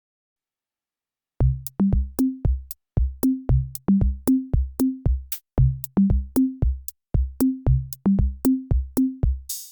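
Background music: an electronic drum-machine beat of punchy pitched bass-drum hits and sharp clicks, starting after a moment of total silence; a synth rise and fuller music come in at the very end.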